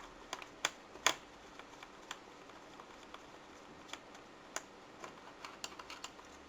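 Scattered light clicks and taps of small hand work on a laptop's plastic case and its tiny screws during disassembly, coming at irregular intervals.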